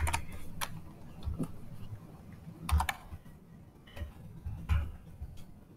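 Computer keyboard keys clicking in short, irregular runs as an email address is typed in.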